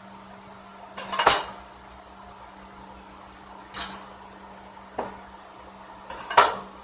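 Kitchen things clattering as they are handled and set down: four short bursts of knocking and clinking, the loudest about a second in and near the end, over a faint steady hum.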